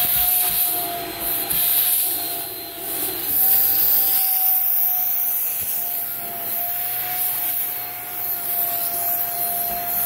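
Shark Pro handheld vacuum running with its crevice tool on a dry bathtub surface: a steady motor whine over rushing air, the whine nudging slightly higher about three and a half seconds in.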